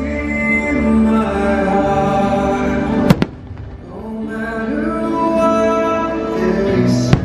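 Fireworks show soundtrack music playing loud, broken by two sharp firework bangs, one about three seconds in and one near the end.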